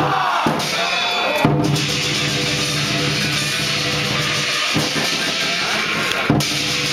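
Chinese dragon dance percussion, a drum with clashing cymbals and a ringing gong, playing continuously to accompany the dance. Two sharper strikes stand out, about a second and a half in and near the end.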